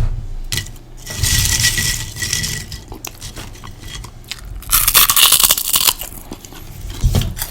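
Puffed microwave pork rinds crunching in two long crackly bouts, the second louder.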